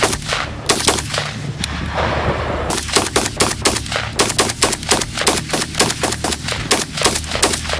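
Rapid strings of shots from an AK-pattern pistol chambered in 5.56, fired quickly one after another, with a short break about two seconds in before a long fast string.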